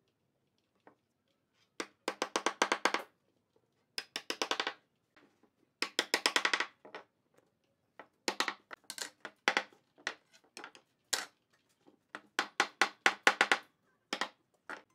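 Wooden mallet knocking glued wooden legs down into the holes of a round wooden stool seat. The knocks come in quick runs of about ten a second, with short pauses between runs.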